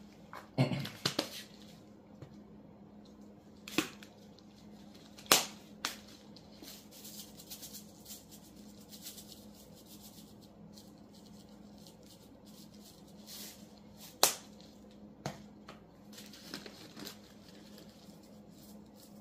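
Plastic and glass spice bottles being handled: a few sharp clicks and knocks as caps are snapped and bottles are set down on a stone countertop, with quieter rustling of gloved hands between, over a steady low hum.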